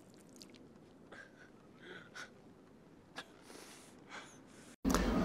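A man drinking from a leather canteen: faint, scattered gulps and slurps with short breathy gasps. Near the end it cuts to a low steady room hum.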